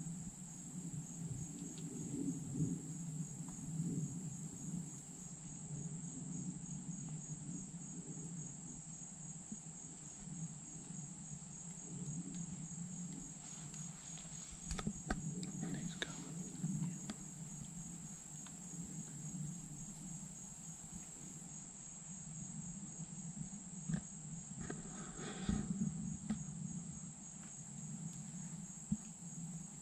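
A steady, high-pitched insect trill running throughout, over a low steady rumble, with a few brief scratchy sounds about halfway through and again near the end.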